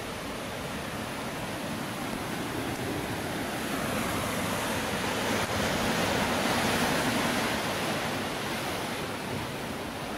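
Ocean surf breaking and washing over rocks and boulders: a steady rush of water that swells louder through the middle and eases off near the end.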